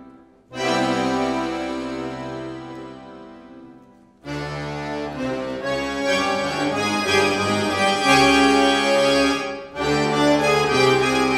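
Orchestra of bayans and accordions playing sustained chords. A loud chord enters about half a second in and fades away over some three seconds. After a short silence the full ensemble comes back in loudly with shifting chords, with a brief break near the end.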